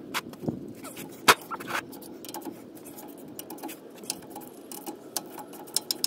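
Hand ratchet clicking in irregular runs as it backs out steel differential cover bolts, with light metal clinks of socket and tool; one sharper clink about a second in.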